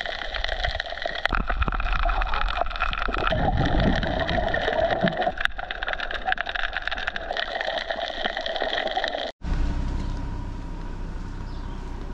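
Underwater sound picked up by a camera swimming over a coral reef: muffled water rushing and gurgling, with many scattered crackling clicks. About nine seconds in it cuts off abruptly and gives way to a quieter, steady outdoor hiss.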